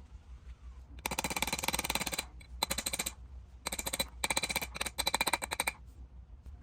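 Grease seal being driven into a wheel hub with rapid metal-on-metal impacts. There are five bursts of fast, ringing hits, the first lasting about a second and the later ones shorter.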